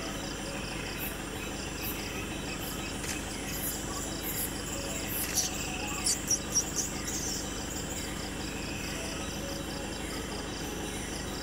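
Night forest insects, crickets among them, chirring steadily, with a click and then a quick run of four short, high chirps a little after five seconds in.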